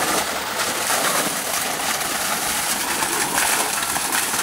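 Waterfall water falling and rushing with a steady, even hiss.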